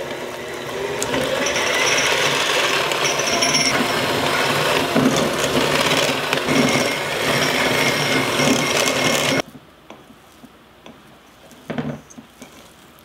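Electric hand mixer running, its beaters whipping butter and honey in a stainless steel bowl until light and fluffy; it cuts off suddenly about nine seconds in. Near the end, a brief scrape of a wooden spatula against the bowl.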